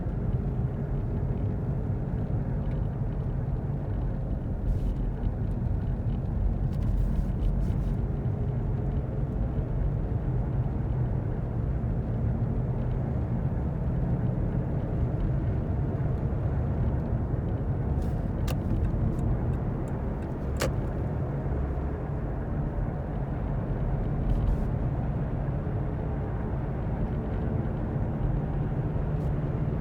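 A car is driving with a failed wheel hub bearing, making a steady low rumbling growl ("gorogoro") that blends with tyre noise. It is heard inside the cabin from the passenger side, and a couple of faint ticks come through about two-thirds of the way in.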